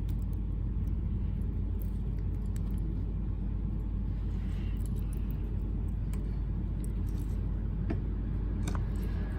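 Steady low background rumble, with a couple of faint clicks near the end as the padlock is handled.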